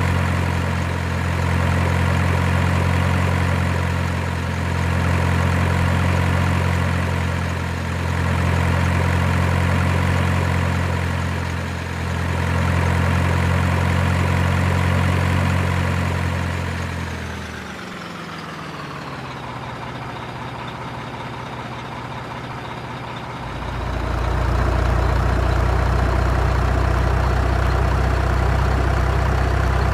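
Diesel truck engine sound, most likely from an RC truck's engine-sound unit, idling steadily with a slow swell and dip every few seconds. A little past halfway its pitch falls away and it goes quieter for about five seconds, then the deep drone cuts back in suddenly and creeps up in pitch.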